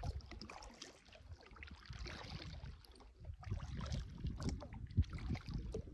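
Kayak paddle strokes splashing and dripping in calm water, over a low rumble, with a sharp knock about five seconds in.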